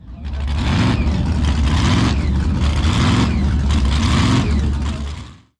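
A loud vehicle engine running and revving with a deep throb, fading out near the end.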